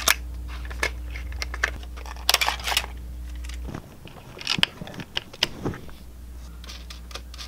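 Small plastic and metal clicks and rattles from hands handling instrument-cluster parts and tiny screws, coming in short irregular clusters.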